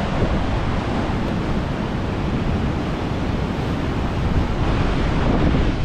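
Heavy surf breaking against the foot of a sea cliff, a steady roar, with wind buffeting the microphone.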